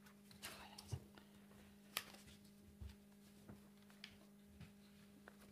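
Near silence: room tone with a steady low hum and scattered faint clicks and soft rustles, the sharpest click about two seconds in.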